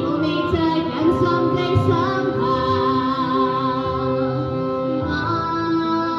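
Pop song with a female voice singing long, held notes that waver slightly in pitch over an instrumental backing.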